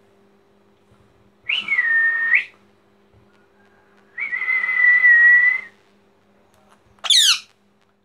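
Rose-ringed parakeet making two drawn-out whistled calls, each holding one pitch, then a short shrill screech of quick falling notes near the end, over a faint steady electrical hum.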